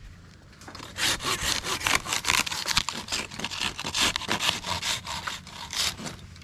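Hand saw cutting through wood: a run of quick back-and-forth rasping strokes, starting about a second in and stopping shortly before the end.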